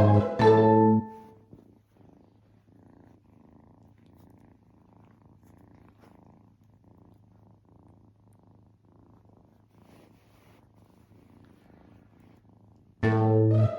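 Kitten purring faintly in a steady rhythm. Background music ends about a second in and comes back near the end.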